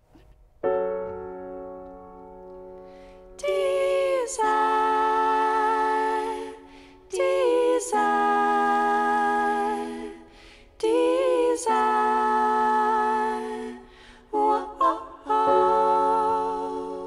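Women's voices singing slow, long-held phrases in close harmony over a struck piano chord that fades beneath them; a live folk-song performance.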